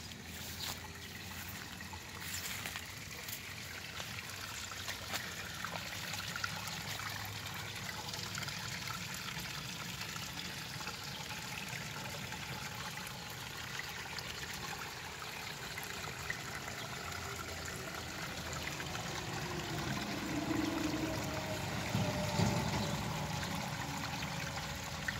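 Steady trickle of running water, such as irrigation water in a rice paddy, with a low rumble underneath that swells briefly near the end.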